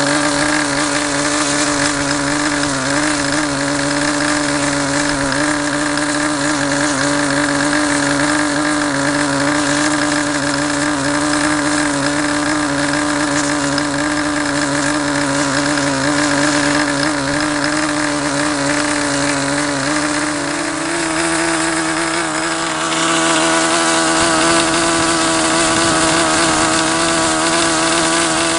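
SuperTigre G51 two-stroke glow engine running steadily at about 8,600 rpm, turning a 10x6 propeller, still set rich of peak for break-in after a rebuild. About three quarters of the way through, its pitch rises a little and it runs louder as the revs go up.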